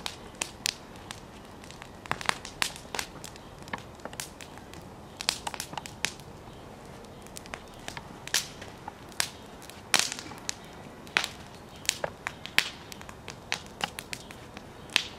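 Wood fire crackling in a fire pit, with irregular sharp pops.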